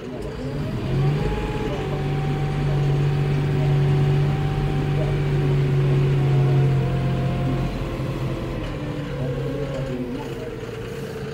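John Deere 5075E tractor's three-cylinder diesel engine heard from inside the cab, revving up about a second in, holding a steady higher speed, then easing off after about seven seconds.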